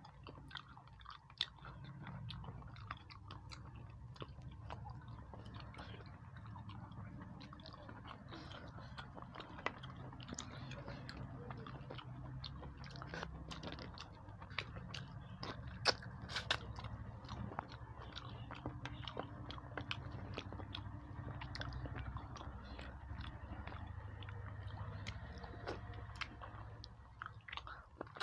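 A person chewing and biting food close to the microphone, eating rice and fish curry by hand, with many small sharp mouth clicks and smacks over a steady low hum.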